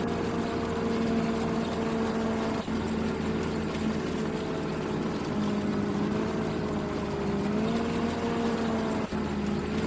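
Combine harvester running steadily with a droning engine hum whose pitch drifts slightly now and then, broken by two momentary dropouts.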